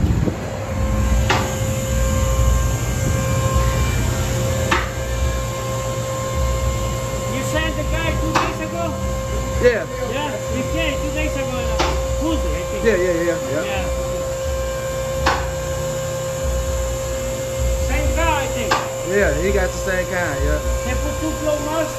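Steady hum with a low rumble underneath, a sharp knock every three to four seconds, and bursts of high, squeaky chirps from about seven seconds in.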